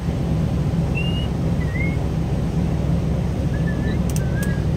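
Vehicle driving through deep floodwater: a steady low rush of engine and water churned up by the wheels. Short high chirps sound now and then over it, and a few faint clicks come near the end.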